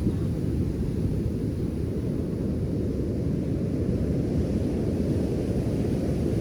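Ocean surf heard as a steady low rumble, with little of the hiss of a wave breaking close by.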